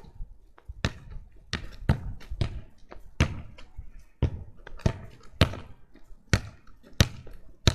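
A soccer ball thudding repeatedly as it is kicked against a wall and bounces back off the wall and the ground. There are about a dozen sharp thuds at an uneven pace, roughly one or two a second.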